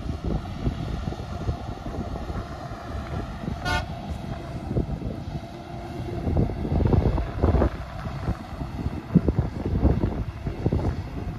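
Heavy wind buffeting on the microphone over the distant, steady running of a Claas Jaguar 960 forage harvester chopping maize. A single short horn toot sounds a few seconds in.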